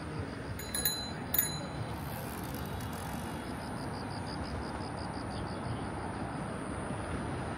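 City street ambience: a steady wash of traffic noise, with two sharp clicks in the first second and a half and a faint, high, rapid pulsing, about four or five a second, from about three seconds in.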